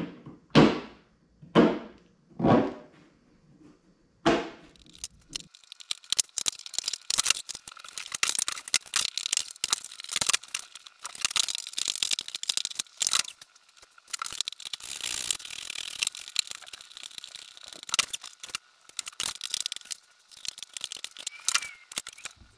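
Work noise from fitting a kayak deck mount: a few short, loud knocks or scrapes, then a long run of dense clicking and rattling of tools and hardware, with a faint steady high tone underneath.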